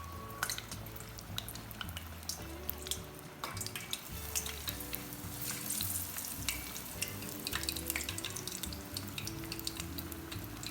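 Food frying in hot oil, a steady crackling sizzle that grows denser midway through, under background music.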